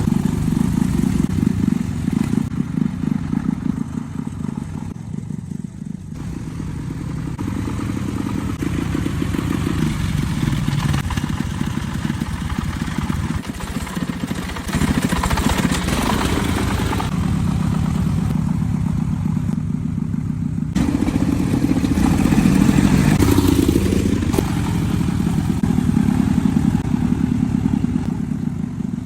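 A heavy vehicle's engine running steadily with a low, pulsing note, with some clatter. The tone and level change abruptly at a few points.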